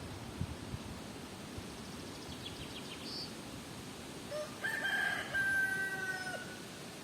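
A rooster crowing once, about four and a half seconds in: one long call held level, then dropping at the end. A small bird chirps briefly a couple of seconds before it, over a steady rustle of wind in the trees.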